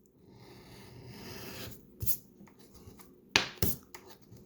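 A coin scratching the coating off a scratch-off lottery ticket: a steady rasp for the first second and a half or so, then a few short scrapes.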